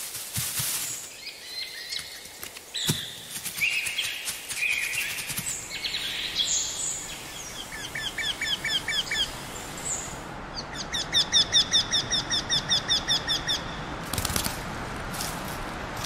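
Several wild birds calling and singing in a forest, with a short run of rapid repeated whistled notes near the middle and a louder, faster run of whistled notes starting about ten seconds in.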